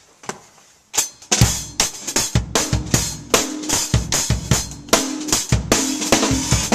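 Acoustic drum kit played with sticks: after a couple of light taps, a full beat on drums and cymbals starts about a second in, with many strokes a second and the cymbals ringing continuously over the drums.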